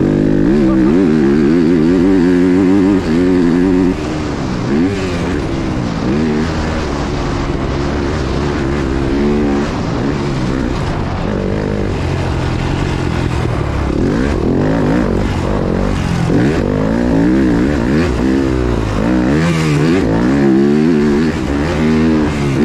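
Yamaha YZ250F's single-cylinder four-stroke engine under riding load, revving up and easing off again and again as the throttle is opened and closed around the motocross track.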